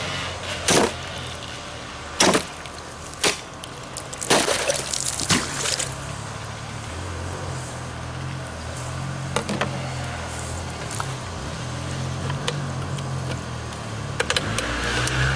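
A handful of sharp knocks and clatters over a steady low hum: a few single knocks and a cluster in the first six seconds, a pair about halfway, and several more near the end.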